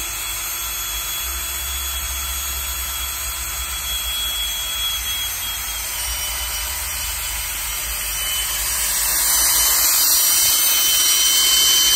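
Cordless drill running steadily, turning a Chrysler 440 V8's oil pump through a hex priming rod to pre-oil the engine. It grows louder about two-thirds of the way through as the empty oil galleys and pickup fill and oil pressure comes up.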